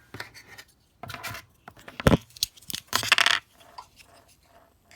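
Small hard clicks, taps and a short scrape of a pen and its adapter being handled and fitted into a clamp, with the sharpest knock about two seconds in.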